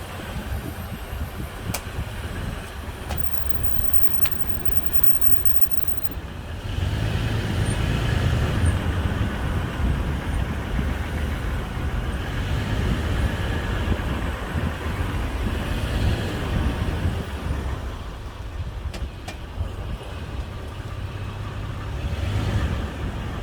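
A 2016 Toyota 4Runner driving, with steady road and tyre noise that grows louder about a third of the way in and eases off again later.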